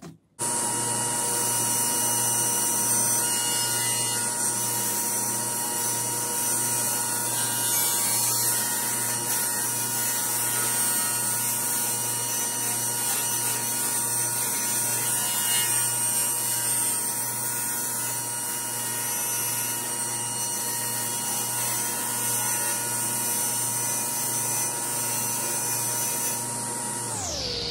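Table saw running steadily while a long sheet panel is fed through the blade, its motor whine holding one pitch. Near the end the pitch slides down as the saw winds down.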